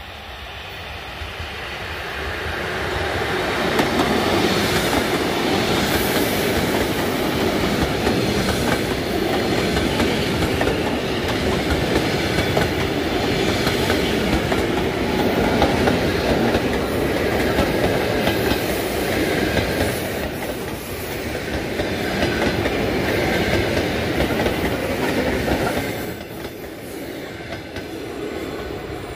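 ET2M electric multiple unit passing close by at speed, its cars and wheels running over the rails. The sound builds as the train comes up, stays loud while the cars go by, and falls away sharply near the end.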